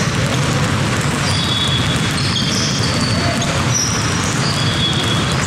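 Many basketballs dribbled at once on a hardwood gym floor, a continuous overlapping clatter of bounces with no single beat, with short high sneaker squeaks coming and going.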